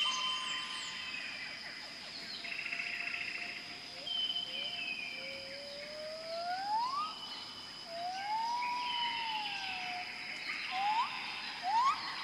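Tropical rainforest ambience: a steady high insect drone under several birds whistling. In the middle, one whistle rises slowly and another long whistle arches up and down; short falling notes sound higher up, and quick rising notes come near the end.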